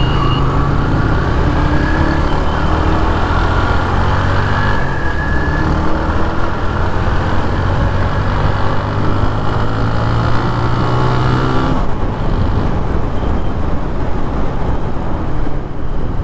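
2010 TVS Apache RTR 180 single-cylinder motorcycle engine on its stock exhaust, pulling away under acceleration: the engine note rises, changes about five seconds in, climbs again, and drops when the throttle closes about twelve seconds in.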